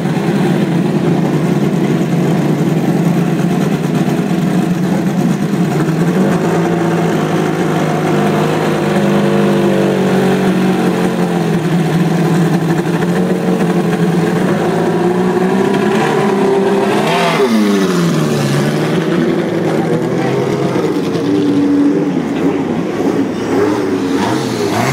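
Engines of several classic racing cars running in the starting lane, idling and being blipped. About seventeen seconds in, one engine's pitch climbs sharply and then drops away as a car revs up or drives past.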